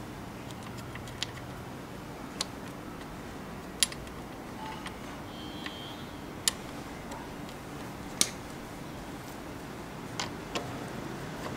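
Scattered sharp clicks and taps, about seven in all at uneven spacing, from hands refitting a small plastic part on a motorcycle frame and working a screwdriver.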